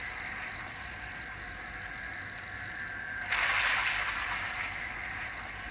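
Mechanical whirring sound effect from a modified Zaku head model's sound kit. A steady faint whir runs throughout, and a louder whirring burst starts about three seconds in and fades away over a second or so.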